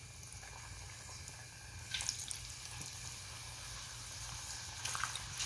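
Corn-flour pastéis frying in hot pork lard in a small saucepan: a faint, steady sizzle with a few louder crackles about two seconds in and again near the end.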